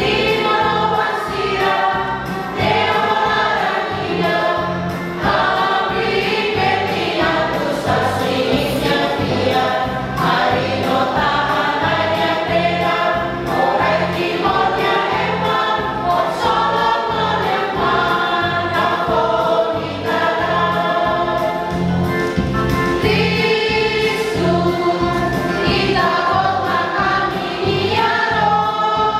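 Music: a choir singing a song over an accompaniment with a steady beat.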